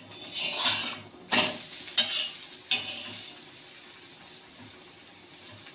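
Egg omelette frying in oil on a tawa, with a steady sizzle. A metal spatula scrapes across the pan a few times in the first three seconds.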